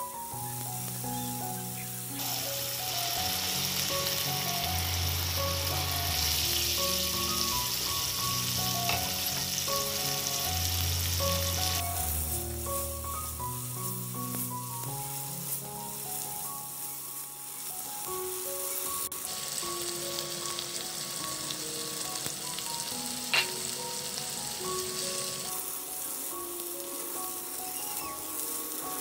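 Curry masala and prawns sizzling in a nonstick pan as they are stirred, over background music. The sizzle comes and goes in stretches, loudest in the first half, with one sharp tick late on.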